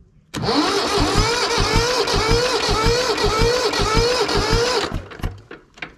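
Diesel tractor engine being turned over by its electric starter for about four and a half seconds, a rhythmic chugging under a whine that rises and falls with each beat, then stopping abruptly without the engine firing. The fuel tank has filled with water after years of standing.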